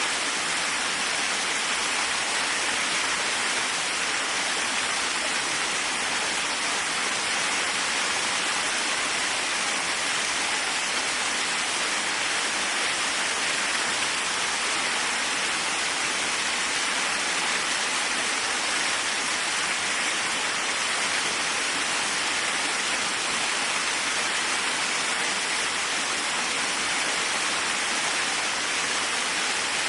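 Waterfall: a steady, unbroken rush of falling water, with most of its sound in the middle and upper range and little low rumble.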